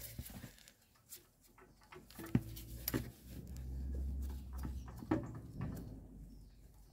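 Wheel brace with a locking-nut key being worked on a van's locking wheel nut while the wheel is still on the ground: a few sharp metal clicks and knocks, the loudest about two and a half seconds in. A low drone runs through the middle.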